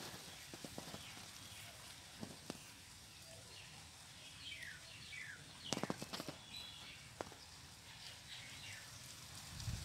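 Faint outdoor ambience: small birds give a few short chirps falling in pitch, and soft clicks and rustles come at scattered moments, a cluster of them about six seconds in.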